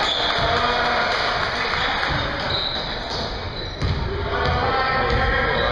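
Basketball bouncing on a gym's hardwood floor during play, with voices of players and spectators echoing in a large hall, and one sharper knock just before four seconds in.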